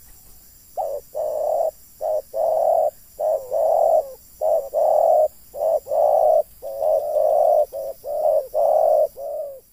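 Spotted dove cooing: a long run of low, repeated coos in short phrases, starting about a second in.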